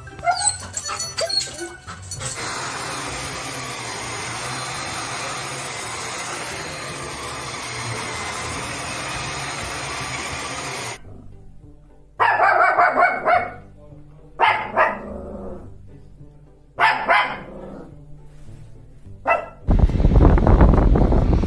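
A vacuum cleaner runs steadily and then stops. Dogs then bark at it in four loud bursts. Near the end, wind buffets the microphone.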